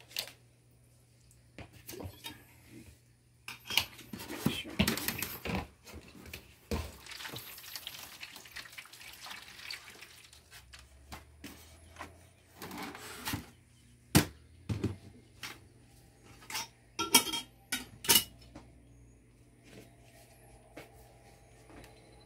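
Clinks and knocks of a glass cup and the plastic trays and lid of a styrofoam egg incubator being handled, with stretches of water being poured into the incubator's water channel. The sharpest knocks come about two thirds of the way through.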